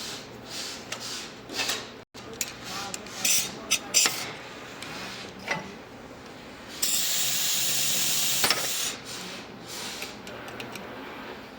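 Hand tools knocking, clinking and scraping on metal parts of a hydraulic jack cylinder, then a loud hiss lasting about two seconds past the middle, such as compressed air or a spray used on the parts.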